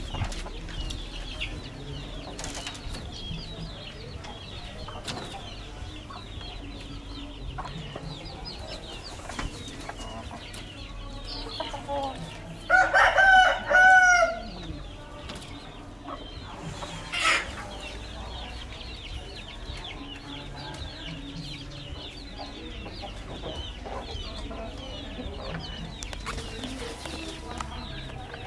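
A rooster crows once, loud, in two drawn-out parts about halfway through, over faint high chirping that goes on throughout. A few seconds after the crow there is one short loud sound.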